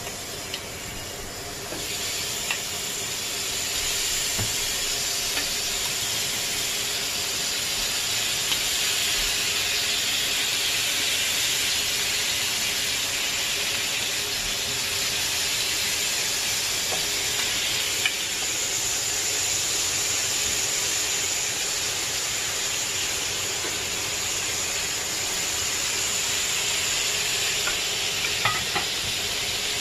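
Shrimp sizzling on a hot ridged grill pan: a steady frying hiss that builds over the first few seconds as they go onto the pan, then holds, with a few light clicks.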